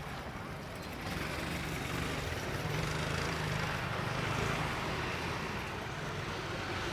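Small-engine street traffic: a steady engine hum with road noise, growing louder about a second in.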